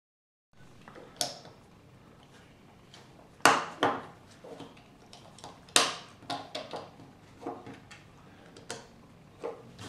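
Lego bricks being pressed onto a small plastic model and handled against a wooden tabletop: irregular sharp plastic clicks and knocks, two of them much louder than the rest, about a third and over halfway through.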